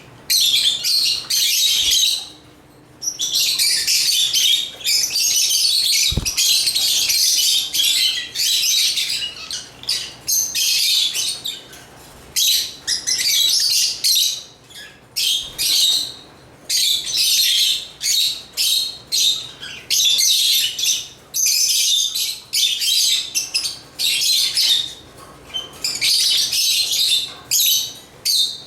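African lovebirds chirping and chattering in quick shrill bursts, coming in spells of a second or two with short pauses between. A single faint low thump about six seconds in.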